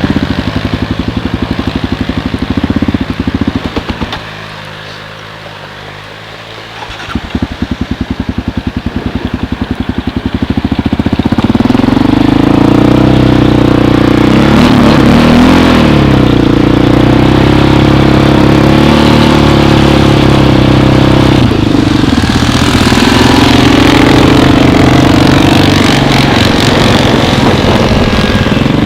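ATV engine running close by with a chugging idle. About four seconds in it drops away, and it picks up again about three seconds later. From about twelve seconds it runs loud, its pitch rising and falling as it is throttled.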